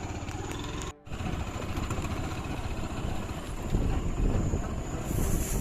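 A vehicle engine running with a steady low rumble, cutting out briefly about a second in.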